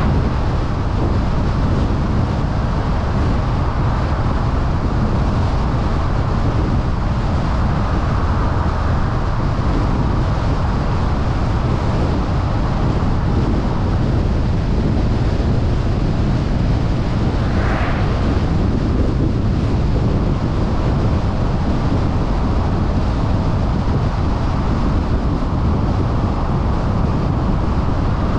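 Steady road and wind noise of a car driving, heard from a dash cam, with a short burst of higher-pitched noise about two-thirds of the way through.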